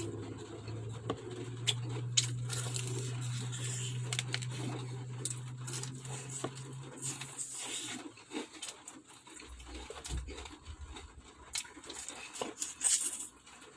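Scattered clicks, taps and tearing sounds of someone eating crispy fried chicken wings, over a low steady hum that stops about seven seconds in.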